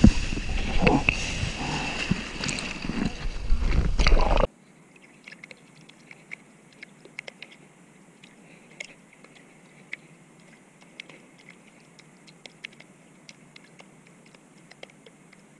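Loud rushing of water and wind around a board-level action camera while riding a wave, cutting off abruptly about four seconds in. After that, faint scattered ticks and small splashes of water lapping around the board and paddling hands.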